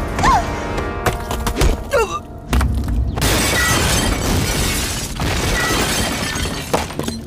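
Drama soundtrack music, then about three seconds in a loud, sustained crashing, shattering sound effect that lasts several seconds.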